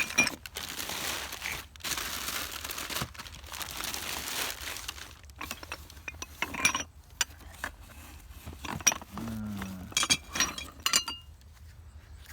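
Rummaging through a pile of junk: a few seconds of rustling, then hard metal and glass pieces knocking and clinking together several times, each clink ringing briefly.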